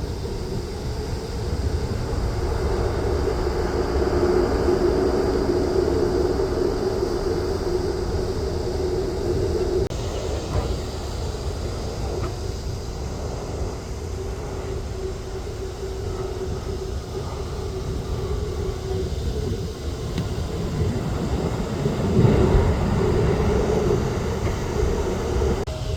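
Jet airliner engines running, a steady rumble with a low drone that swells briefly near the end.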